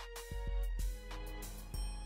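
Background music: held melodic notes over a low beat that falls roughly once a second.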